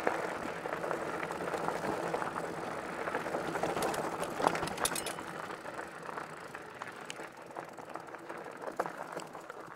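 Hiboy P6 e-mountain bike's 4-inch fat tyres rolling over loose rocky gravel: a steady crunching rattle with a few sharp knocks about halfway through. It grows quieter in the last few seconds.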